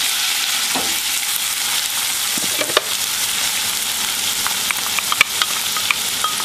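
Chopped onion and green pepper sizzling in melted butter in a stainless steel saucepan: a steady frying hiss with scattered small pops.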